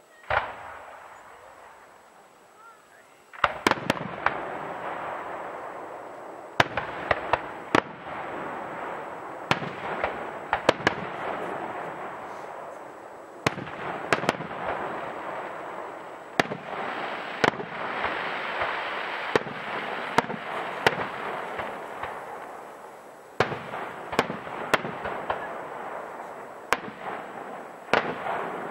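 Aerial fireworks display: one sharp bang, a short lull, then clusters of sharp shell bursts every second or two over a continuous noisy hiss.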